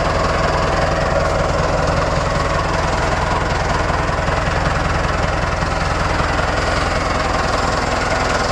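Tractor engine running steadily close by, a low even chugging with no change in speed.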